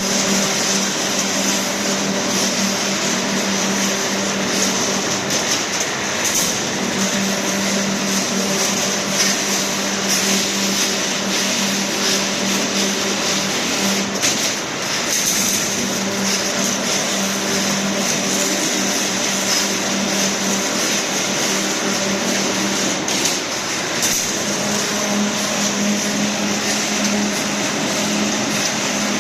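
TJK WGF-12E2 automatic wire straightening-and-bending machine running at full speed: a steady mechanical rattle over a constant hum, with a few sharp clicks now and then.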